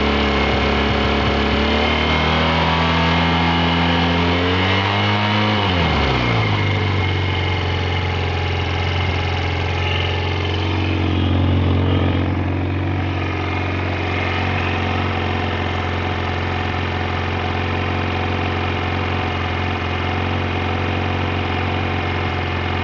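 SMC 250 engine revved up over a few seconds, dropping back sharply about six seconds in and then idling steadily.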